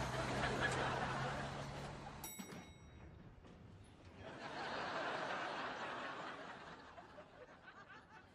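A steady noisy hum that cuts off suddenly a little over two seconds in with a brief ringing click, then a swell of sitcom audience laughter that fades away.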